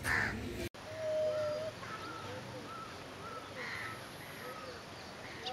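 Birds calling: one held note, then a string of short, arching calls at about two a second. The sound cuts out for an instant shortly before the held note.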